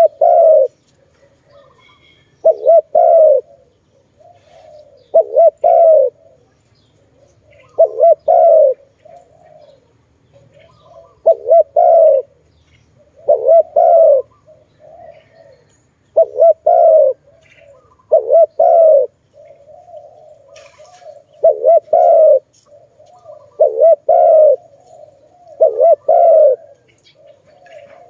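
Spotted dove (tekukur) cooing repeatedly: short phrases of a few low, quick coos, one every two to three seconds.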